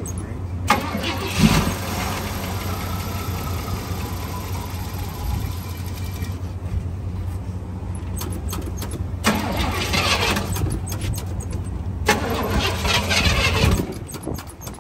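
Pontiac Trans Am's original V8 engine running, with several louder stretches as it is revved. The owners call the original engine tired.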